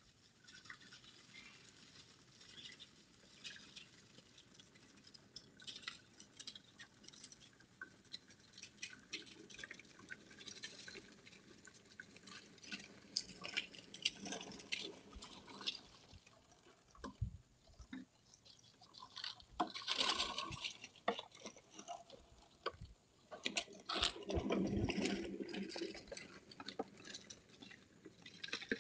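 Agri-Fab push lawn sweeper rolling across the lawn, its spinning brushes flicking dry leaves into the hopper: a dense, crackly rustle with two louder clattering bursts in the second half. Heard through a security camera's microphone.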